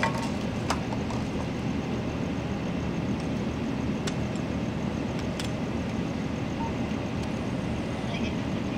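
Steady low rumble of an idling vehicle engine, with a few faint clicks.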